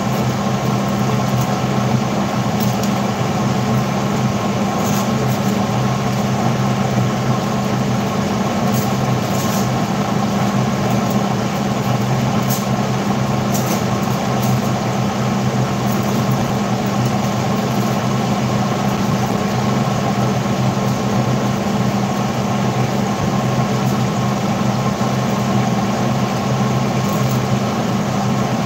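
Steady machine hum: a constant low drone with an even hiss over it, unchanging throughout, with a few faint light clicks.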